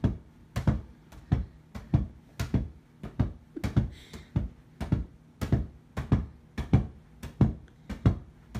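Inflatable beach ball being bounced and kicked on a carpeted floor: a string of dull thumps, about two a second.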